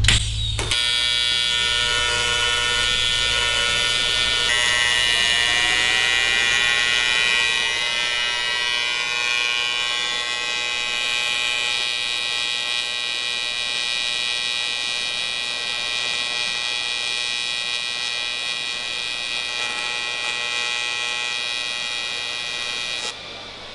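AC TIG welding arc on 14-gauge aluminium from a Miller Multimatic 220 AC/DC set for 105 amps: a loud, steady buzz that strikes with a sharp click from the high-frequency start and cuts off suddenly near the end.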